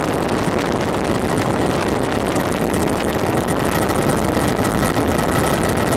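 Steady aircraft cabin noise: the engine drone and rushing air heard from inside a low-flying sightseeing aircraft.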